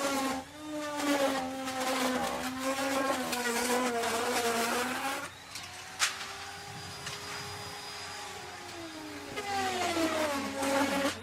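Electric wood router cutting wood. Its motor whine drops in pitch under load, with a rough cutting noise. From about five seconds in it runs free at a higher, steady pitch, with one sharp click a second later, then its pitch sags again as it bites back into the wood near the end.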